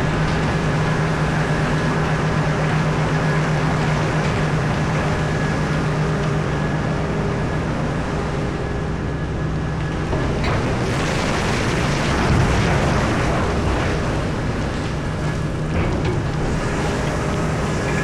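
Komatsu PC4000 mining excavator working, a steady engine drone with a low hum. From about ten to fourteen seconds in a louder, rougher noise rises over it, as the bucket works against poorly broken, unblasted rock.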